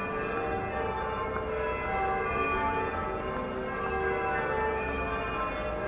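Clock bells ringing the hour at four o'clock: several bell notes struck one after another, each ringing on over the next.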